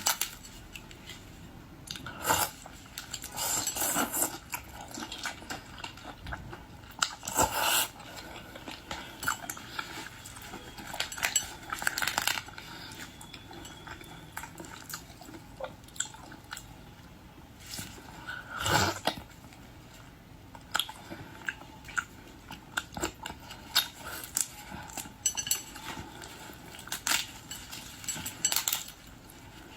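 Close-up eating sounds of boiled shrimp and lobster: irregular crunching and chewing, with scattered sharp clicks of dishes and cutlery.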